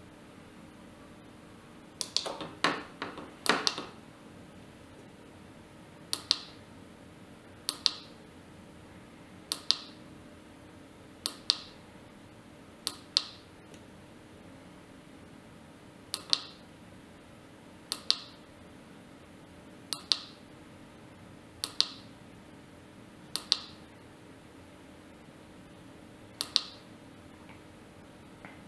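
Push buttons on an emergency light bar's control box clicking. There is a quick flurry of several clicks about two seconds in, then single short clicks every second and a half to two seconds as the flash patterns are stepped through.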